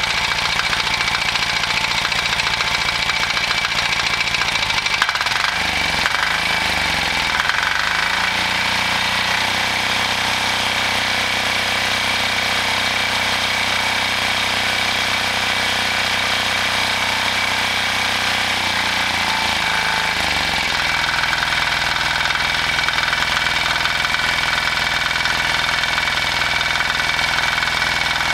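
A 296 cc single-cylinder HD300D (178F) air-cooled diesel engine running steadily just after a recoil start. Its speed rises about five seconds in, holds, and drops back about twenty seconds in.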